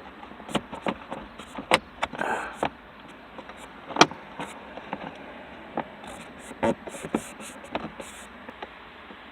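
Irregular clicks, taps and short scrapes of hands fitting a plastic cover and working a small clip screw into place, with one sharper click about four seconds in.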